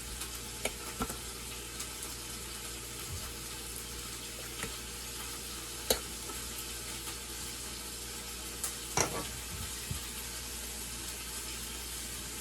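Faint steady sizzle from a hot baking pan of cheese-topped potatoes, with scattered light clicks and taps of a utensil against the pan; the sharpest tap comes about six seconds in.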